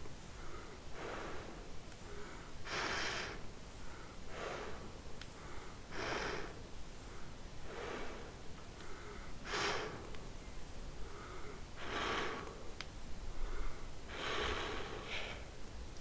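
Empty plastic kvass bottle squeezed and released over and over, a short breathy rush of air and crackle about every second and a half, alternating stronger and weaker.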